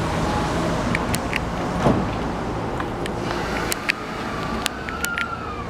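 E217 series electric train running, a steady rumble with scattered sharp clicks from the wheels and track. A faint whine glides up and then back down in the second half.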